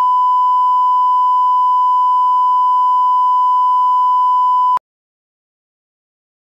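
Broadcast line-up test tone played with color bars, a single steady pitch at 1 kHz that cuts off suddenly nearly five seconds in.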